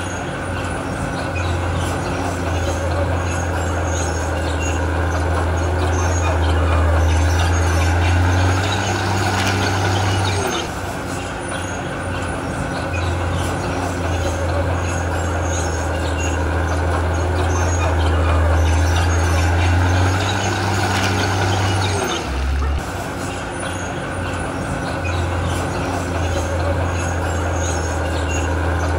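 Heavy diesel engine of earthmoving machinery running steadily under load with a deep, loud hum. The engine note shifts about ten seconds in and again a little after twenty seconds.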